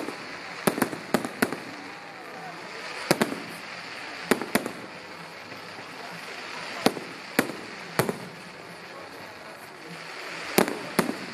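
Fireworks display: a series of sharp bangs and cracks from bursting aerial shells, about a dozen in all, coming mostly in quick pairs and small clusters a second or two apart.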